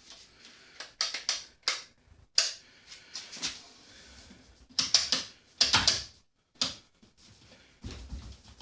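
Irregular clicks and knocks from a polisher being handled and its switch worked. No motor starts: the tool will not run.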